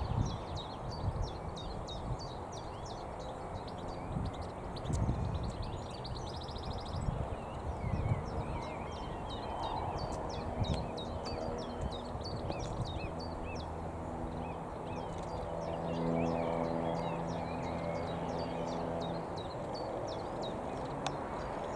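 Small birds, goldfinches among them, chirping and twittering in quick short notes, over low rumbling noise with a few thumps in the first half. From about two-thirds through, a low steady droning tone joins for several seconds.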